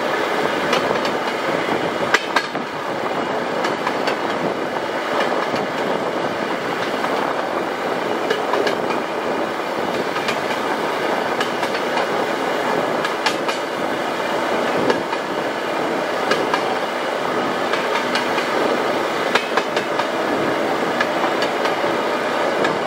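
Narrow-gauge railway motor car running along the track: a steady rumble of motor and wheels on rail, with scattered sharp clicks as the wheels cross rail joints.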